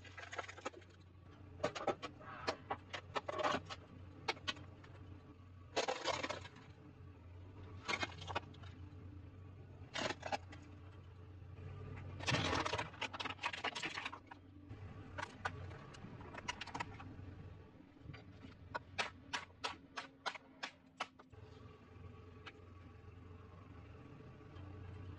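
Car tyre rolling slowly over objects on asphalt and crushing them: plastic breaks with clusters of sharp cracks and snaps, and a pair of headphones crunches under the wheel about halfway through. A low steady hum runs underneath.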